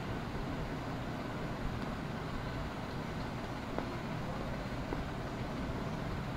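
Steady background noise: a low hum with hiss, the room and microphone tone of a desk recording, with two faint clicks about four and five seconds in.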